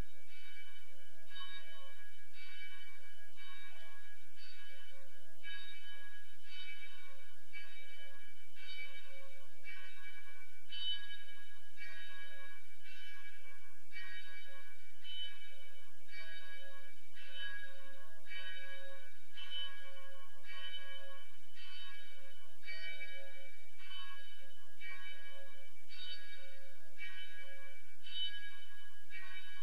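Church bells ringing, a steady run of strokes a little more than one a second.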